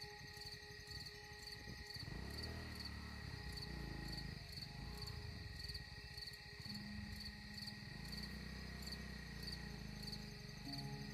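Insects chirping in an even pulse, about two a second, over a steady high-pitched hum. A low rumble comes in about two seconds in.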